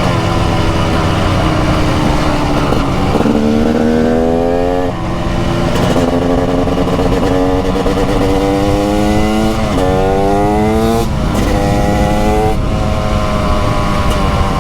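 TM SMR 300 supermoto's 300 cc two-stroke single-cylinder engine accelerating hard through the gears, its pitch climbing and then dropping sharply at each upshift, four times.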